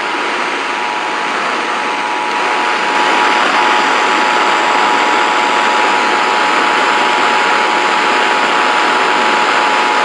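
Emergency Alert System two-tone attention signal, a steady dual tone heard over a radio through heavy static hiss. It cuts off at the very end.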